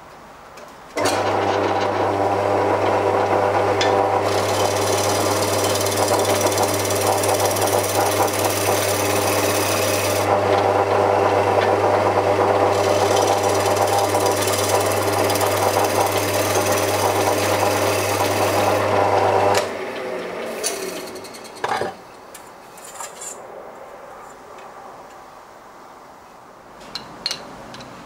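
A wood lathe motor starts about a second in and runs with a steady hum. A turning tool cutting the spinning wooden disc adds a loud hiss in two long stretches. Near the end the motor stops and winds down, followed by a knock and a few light clicks.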